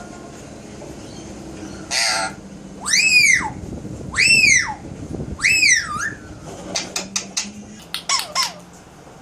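Alexandrine parakeet calling. A short harsh squawk comes about two seconds in, then three loud rising-and-falling screeches about a second apart, then a run of quick clicking notes.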